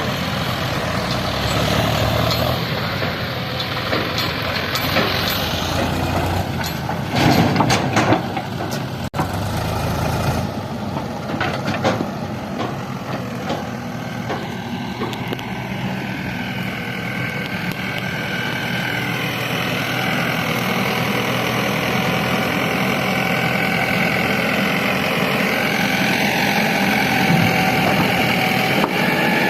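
Heavy diesel machinery running: the engine note rises and falls as it works under load, with a loud burst of clatter about seven to eight seconds in.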